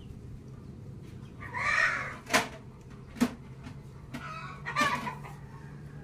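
Two short animal calls, about three seconds apart, with two sharp clicks between them.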